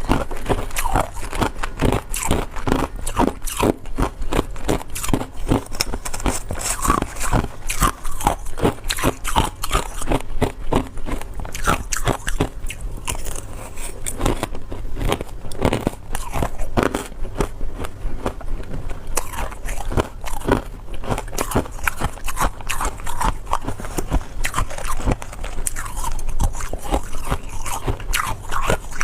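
Ice being bitten and chewed: a dense, continuous run of sharp crunches and cracks.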